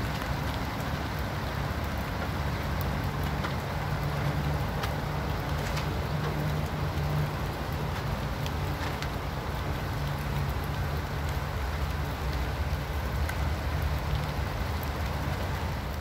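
Steady rain falling, with scattered drops ticking close by and a low steady hum underneath.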